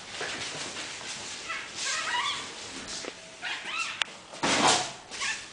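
Yorkshire terrier whimpering at a whelping: short, high, wavering cries twice in the middle, with a loud rustle near the end.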